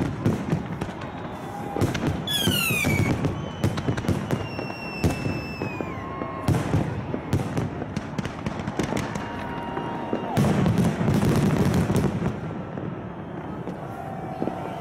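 Fireworks going off overhead: a dense run of bangs and crackles, with a few high tones sliding down in pitch in the first half.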